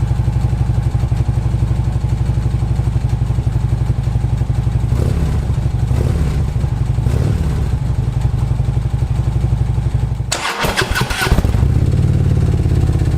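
Harley-Davidson Touring V-twin breathing through Vance & Hines Monster Oval slip-on mufflers, without True Dual, idling with a steady low note; about five seconds in the throttle is blipped a few times, the pitch rising and falling. About ten seconds in there is a brief hiss-like noise, after which the idle settles again slightly louder.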